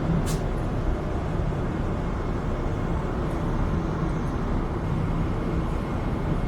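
Steady rushing cabin noise inside a Boeing 777-300 airliner, engines and airflow running evenly, with one short click just after the start.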